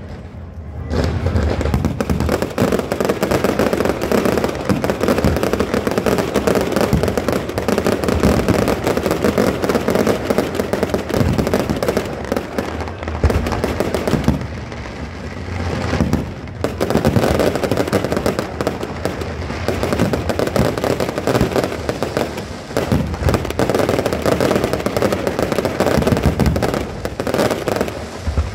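Fireworks display: aerial shells bursting and crackling in rapid, overlapping succession, easing for a couple of seconds about halfway through, then building again.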